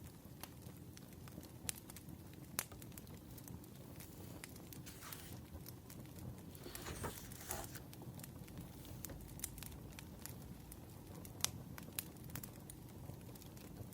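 Burning firewood crackling: scattered sharp pops and snaps over a low steady hiss, with a longer soft rustle about five to eight seconds in.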